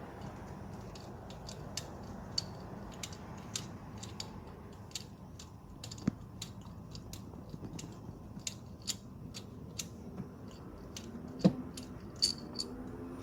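Light metallic clicks and rattles from a hand tool working the ignition coil-pack bolts, irregular and a few each second, with a couple of louder knocks about halfway and near the end, over a faint steady low hum.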